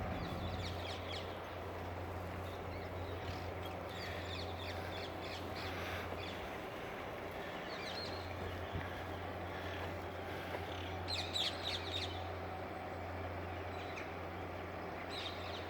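Small push boat's engine running at a steady low hum, with bird calls chirping and cawing now and then over it, a quick cluster of them near the end.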